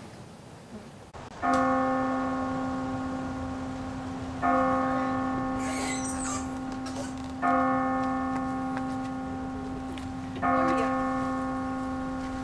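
A single church bell tolling four times, about three seconds apart, each strike ringing on and slowly fading until the next.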